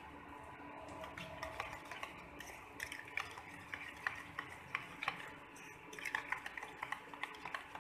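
Metal spoon beating egg batter with chopped onion and tomato in a stainless steel bowl: quick, irregular clinks and scrapes of the spoon against the bowl.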